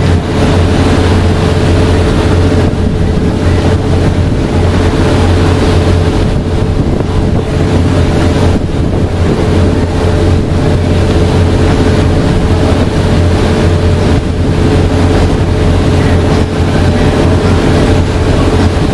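A boat's engine running steadily with a constant low hum, with wind on the microphone.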